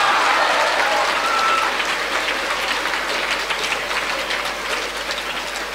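Audience applauding: a dense patter of many hands clapping that slowly dies down.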